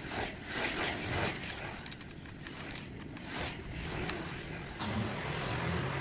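DYMO 1750 hand embossing label maker punching letters into plastic tape, heard as a series of irregular clicks and crunches as the letter wheel is turned and the handle squeezed. A low steady hum comes in near the end.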